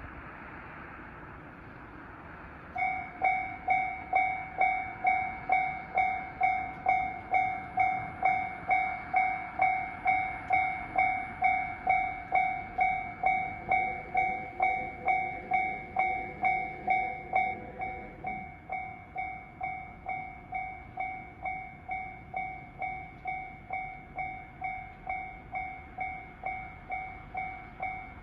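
Japanese railway level-crossing warning bell starting up about three seconds in and ringing a steady, evenly repeated ding of about two strikes a second, signalling that a train is approaching. The bell drops to a lower volume a little past halfway and keeps ringing.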